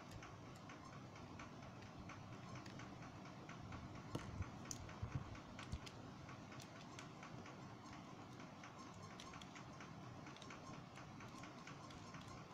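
Faint small clicks and taps from a plastic phone housing and a small screwdriver being handled during disassembly, with a short run of louder clicks about four to six seconds in.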